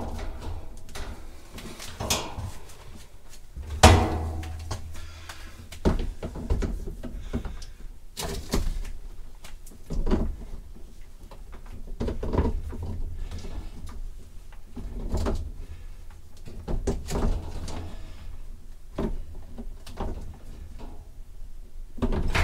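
Irregular knocks, clunks and rustling as a washing-machine hose fitting is handled and threaded onto the water supply valve behind the machine and snugged up, with a louder knock about four seconds in.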